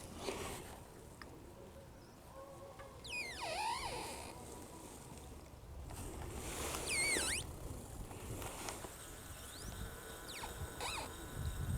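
Sea ice floes grinding against each other, giving drawn-out squealing creaks that slide down and back up in pitch. The loudest come about three seconds in and again about seven seconds in, with fainter squeaks near the end.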